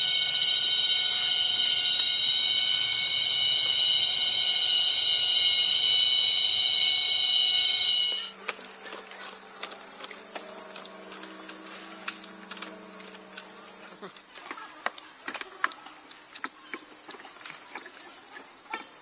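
Rainforest insect chorus: many insects calling at once as a layer of steady, high-pitched tones. About eight seconds in it changes abruptly to a thinner chorus with scattered faint clicks.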